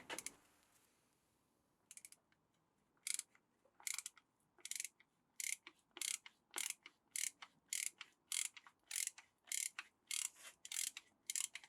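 A small mechanism clicking repeatedly: about seventeen short, sharp clicks, roughly two a second.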